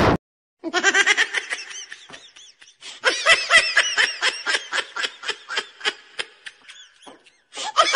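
Laughter sound effect: high-pitched ha-ha-ha laughter in quick, even pulses. It comes in two bouts with a short break, and starts again near the end.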